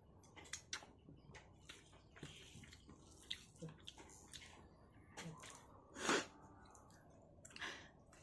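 Close-up eating sounds: quiet wet chewing and squishing of food with small scattered clicks, and one short, sharp, louder sound about six seconds in.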